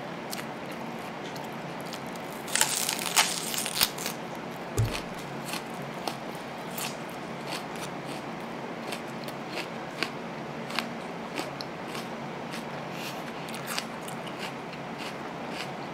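Biting into a whole raw onion: a run of loud crisp crunches a few seconds in, then slower, irregular crunching as it is chewed with the mouth close to the microphone.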